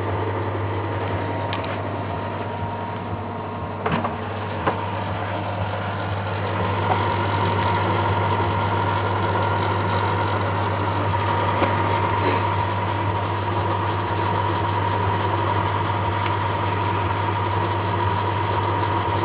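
1992 Feya microwave oven switched on and humming steadily, with a deep mains hum and a higher steady tone that grows stronger about six or seven seconds in. There are a couple of faint clicks about four seconds in.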